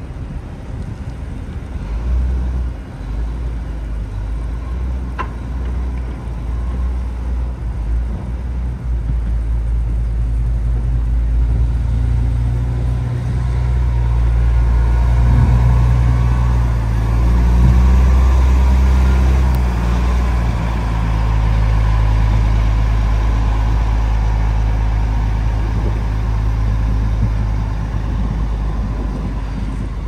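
Large wheel loader's diesel engine running as the machine drives past close by. The low hum grows louder toward the middle and eases off as it moves away.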